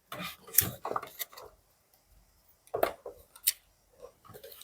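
A few separate light knocks and clinks of small hard objects being handled and set down on a table, with quiet gaps between them.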